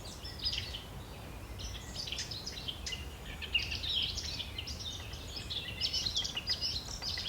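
Small birds chirping in a busy chorus of many short, overlapping calls, over a low steady rumble.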